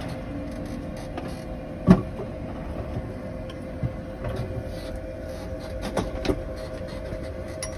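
Steady cockpit hum with a constant tone in an Airbus A220 flight deck, broken by sharp clicks of switches and controls being worked on the centre pedestal. The loudest click is about two seconds in, with others near four and six seconds.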